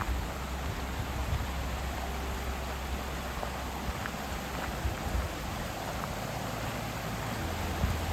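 Steady rushing of a creek or waterfall, an even hiss with a low rumble beneath it and a few faint ticks.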